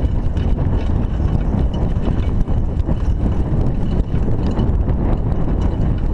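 Raleigh Ascent mountain bike ridden over a loose dirt track: a steady rumble of wind on the chest-mounted camera, with the tyres crunching and the bike rattling in many small clicks.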